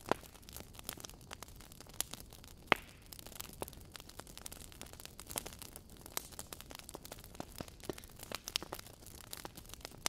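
Burning logs crackling in a fireplace: an irregular scatter of sharp snaps and pops over a faint hiss, with one louder pop a little under three seconds in.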